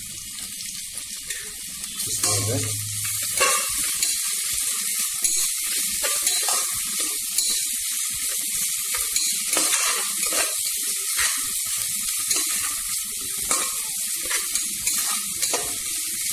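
Sliced onions with ginger and garlic paste sizzling in hot oil in a pressure cooker, with a metal ladle scraping and stirring against the pot in frequent short strokes. The masala is frying until it turns light red.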